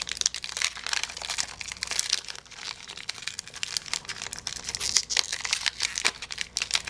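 A foil Pokémon booster pack wrapper being torn open by hand, crinkling and crackling as it is picked at and pulled apart.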